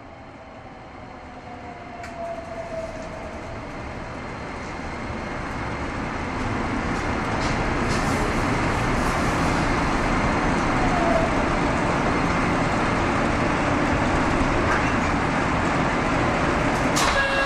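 Nagoya City Subway Tsurumai Line train heard from inside the car: a steady running rumble of wheels and motors. It grows louder over the first six seconds, then holds steady, with a faint falling whine near the start and a sharp click near the end.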